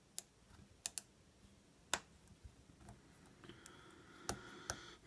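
Lock picking in a Master Lock bike lock's pin-tumbler cylinder: a handful of sharp, faint, irregular clicks as the pick works the pins, clicks that give no consistent feedback toward opening.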